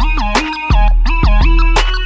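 Background music: an electronic track with a deep, steady bass and a melody of notes that slide up and down in pitch.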